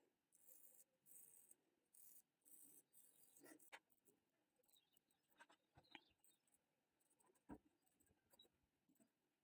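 Very faint scraping of a small eyebrow razor's blade drawn down over facial skin: several short strokes in the first three seconds, then a few faint clicks.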